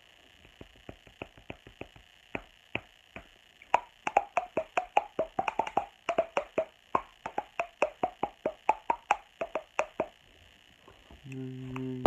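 A child making popping and clicking noises with the mouth, a fast string of short pops. They are quiet and sparse at first, grow louder about four seconds in at about five a second with a hollow pitched ring, and stop about two seconds before the end.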